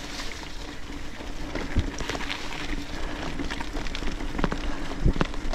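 Trek Supercaliber mountain bike rolling over a wet, muddy forest track: a steady crackle of tyres on wet dirt and grit, with sharper knocks as the bike hits bumps, loudest about five seconds in.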